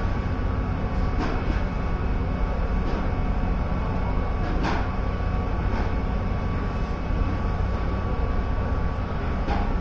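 Hakone sightseeing pirate ship's engine running with a steady low drone, with a thin steady whine above it and a few brief sharp sounds scattered through.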